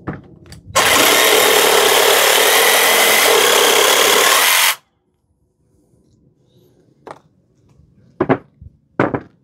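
Parkside PSSSA 20 LI B2 cordless jigsaw running for about four seconds, sawing through a piece of wood; it starts and cuts off abruptly. A few short sharp knocks follow near the end.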